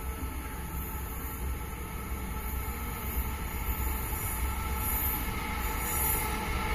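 Two Taiwan Railways electric locomotives, an E200 and an E300 class, running light and coupled together as they approach. A low rumble carries several steady humming tones, and it grows gradually louder.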